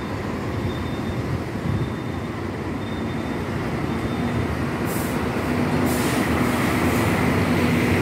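Coaches passing on a city street: steady diesel engine and tyre noise, growing louder toward the end as another coach approaches, with short hisses about five and six seconds in.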